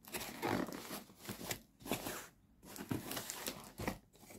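Scissors cutting through packing tape on a cardboard shipping box, with cardboard and plastic crinkling and scraping in irregular bursts.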